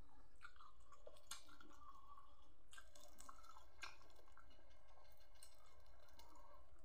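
A person chewing a mouthful of food close to the microphone, eating by hand, with a few short sharp smacking clicks between about one and four seconds in.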